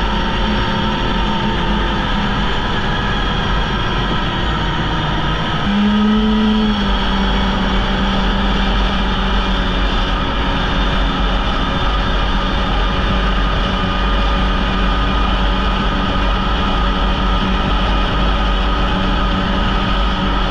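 Polaris Indy snowmobile engine running under way on the trail, steady throughout; about six seconds in the throttle opens, the engine note rises and it holds a little louder.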